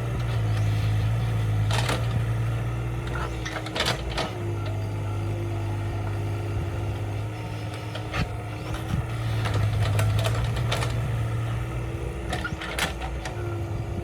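Kubota excavator's diesel engine running steadily, its level swelling and easing, with several sharp knocks scattered through.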